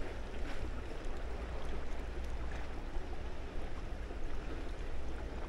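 Sea water washing and lapping among the concrete tetrapods of a breakwater as the tide pushes in: a steady wash over a low rumble.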